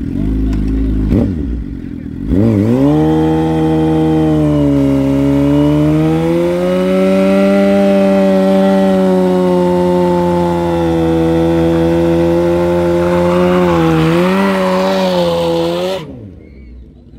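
Suzuki GSX-R 750 inline-four sportbike engine doing a burnout. It blips a couple of times, then the revs climb about two seconds in and are held high and fairly steady for about fourteen seconds while the rear tyre spins and smokes on the pavement. The engine note wavers near the end and then stops abruptly.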